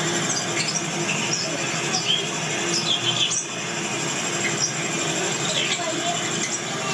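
Overlapping chatter of a crowd of visitors, with many short high-pitched voices and squeals.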